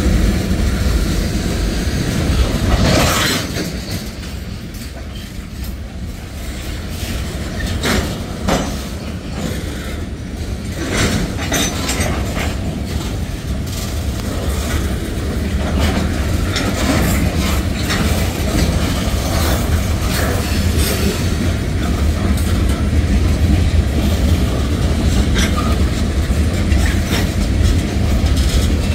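Freight train of tank cars and covered hoppers rolling past close by: a steady low rumble of wheels on rail, with clicks and clanks as the wheels cross rail joints.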